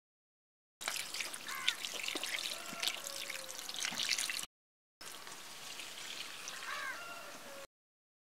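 Water pouring and splashing in a steel bowl as raw pork pieces are rinsed and turned by hand, with small wet clicks of the meat being handled. It comes in two stretches, each stopping abruptly.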